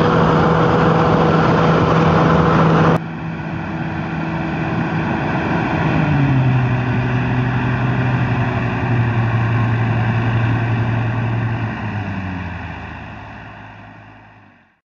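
Weiss McNair V sweeper running in the orchard, a steady engine hum. It drops abruptly in loudness about three seconds in, steps down in pitch around six seconds in, and then fades away near the end.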